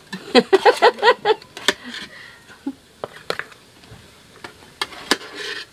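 A metal ladle clinking and scraping against an aluminium cooking pot while leaf-wrapped parcels are lifted out: a handful of separate sharp clinks spread out after a short stretch of a man's voice at the start.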